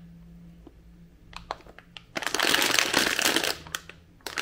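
Plastic packaging crinkling and rustling as it is handled: a few light clicks about a second and a half in, then a dense burst of crinkling for about two seconds.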